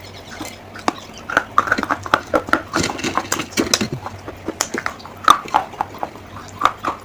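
Brittle baked clay crunching and cracking: a quick, irregular run of sharp clicks and short, bright crackles.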